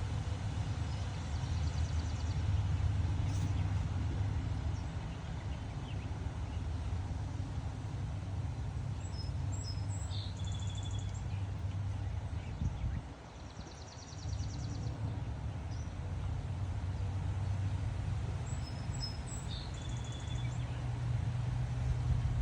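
Strong wind buffeting the microphone as an uneven low rumble that eases briefly a little past halfway. A small songbird sings short chirping, trilled phrases twice, over the wind.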